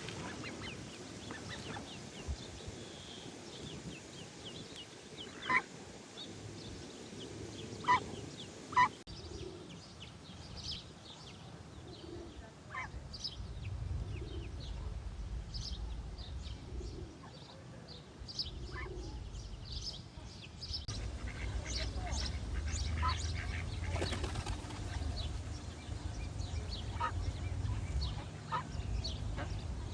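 Duck and duckling calls: short high peeps scattered throughout, with three louder calls between about five and nine seconds in, and soft low calls every second or two through the middle. A low steady rumble underneath grows louder partway through.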